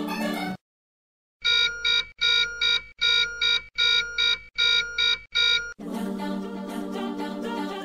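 A song with singing cuts off suddenly; after a brief silence a high electronic ringtone-style beeping repeats about seven times, close together, then the song starts again near six seconds in.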